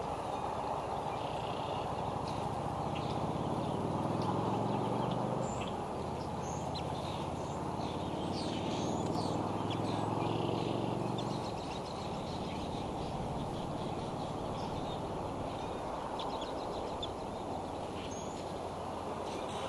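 Outdoor nest-cam sound: a steady background hiss with many short, high bird chirps scattered through it. A low engine-like hum comes in about three seconds in and fades out a little past the middle.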